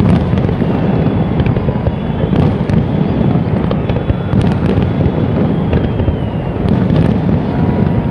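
Fireworks going off in a dense, continuous barrage of low booms, with sharper cracks now and then.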